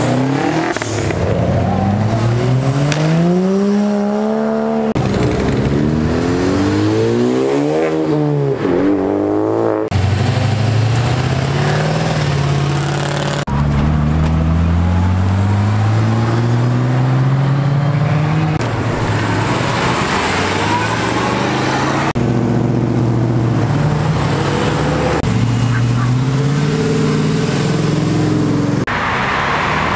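Modified cars accelerating hard away from the kerb and past close by, one after another, each engine revving up with rising pitch and shifting through the gears; the sound changes abruptly several times as one car gives way to the next.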